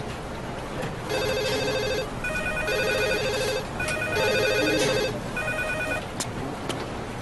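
Electronic office desk telephones ringing: a warbling trill ring repeated in short bursts, about four times, some rings overlapping.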